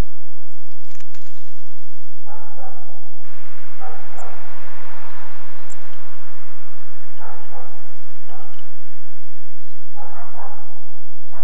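A dog barking in short bursts, about five times spread across a few seconds, with a rushing noise swelling and fading around the middle.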